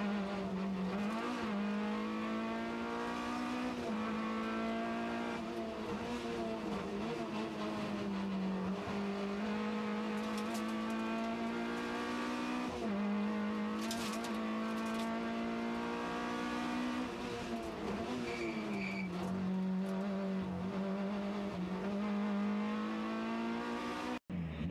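Talbot Samba rally car's engine heard from inside the cabin, driven hard up and down the gears: the pitch climbs through each gear, drops sharply at each shift and sags on lifts for corners. The sound drops out briefly near the end.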